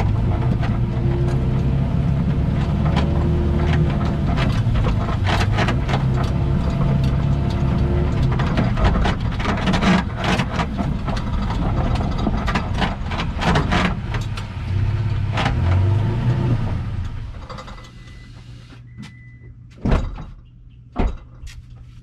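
Toyota Tacoma being driven, its engine note rising and falling, with a stream of sharp clicks and crackles from the suspension, whose bushing bolts have been left loose. The engine stops a few seconds before the end, followed by a brief beep and two sharp knocks.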